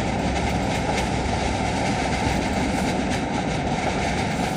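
Steady rumble of a moving car's road and engine noise heard inside the cabin.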